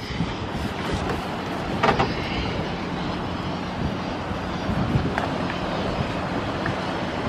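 A steady engine hum and rumble with an outdoor wash of wind and water noise, and a couple of light knocks, about two and five seconds in.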